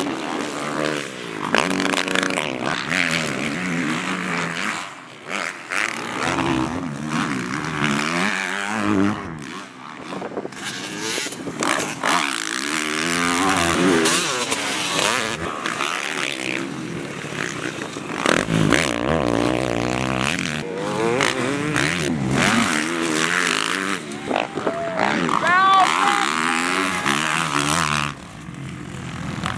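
Motocross dirt bike engines revving hard and backing off as the bikes race past, the pitch climbing and falling with each throttle change.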